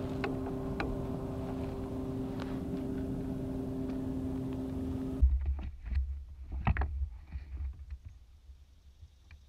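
A steady motor hum with a noise haze, which cuts off suddenly about five seconds in. A few sharp clicks and low thumps follow as fishing gear is handled, then it fades toward quiet.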